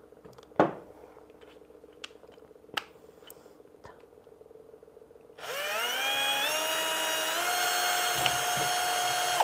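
A few light handling clicks and a knock, then, about five seconds in, a Bosch 10.8 V cordless drill starts up. Its motor whine rises in pitch in steps and then runs steady as the bit drills into a PLA 3D print held in a bench vise, stopping near the end.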